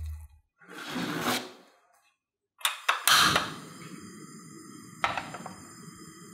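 A portable gas stove being lit: a few quick clicks of the igniter, a whoosh as the burner catches, then the steady hiss of the gas flame. About two seconds later a metal pan is set down on the burner grate with a knock. A short rush of noise comes about a second in, before the stove is lit.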